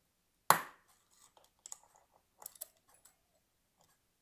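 Hasal mosaic chopping machine's blade snapping through a 10 mm glass rod: one sharp crack with a brief ring about half a second in, followed by a few faint clicks and clinks.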